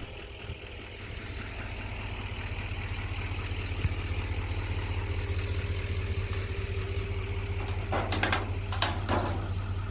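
An engine idling steadily, growing louder over the first few seconds, with a few short knocks or clatters near the end.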